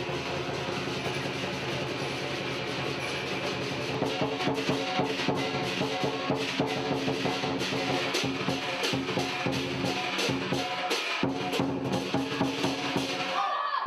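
Lion dance percussion: a drum with cymbals playing a fast, driving beat of rapid strokes over a steady metallic ringing. It gets louder, with stronger accents, about four seconds in.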